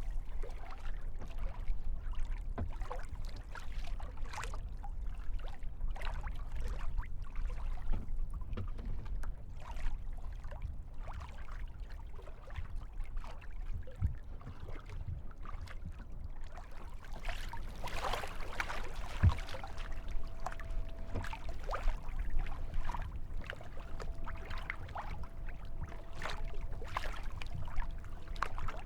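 Kayak paddle strokes dipping and splashing in lake water, in short irregular splashes over a low rumble. A faint steady tone joins about two-thirds of the way in.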